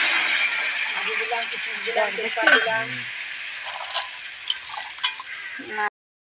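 Steady sizzling hiss of food cooking on a gas stove, with a few light clicks as cashews and raisins are tipped into a pot of milk and rice.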